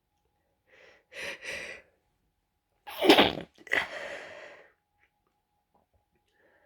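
Stifled sneezes from a person with a cold: two short breathy build-up bursts, then a sharp held-in sneeze about three seconds in, the loudest sound, followed at once by a longer breathy burst.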